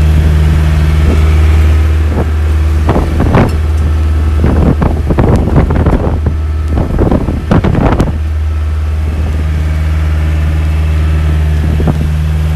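Motorboat engine running steadily with a low hum. From about three to eight seconds in, loud irregular splashes of choppy water break over it.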